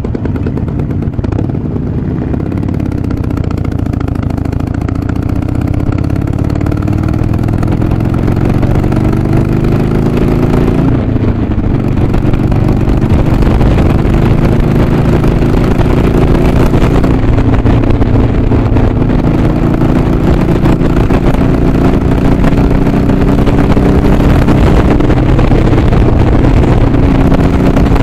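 Harley-Davidson Sportster Iron 883's V-twin engine pulling on the road, its pitch climbing steadily. About eleven seconds in it drops sharply at an upshift, then climbs slowly again.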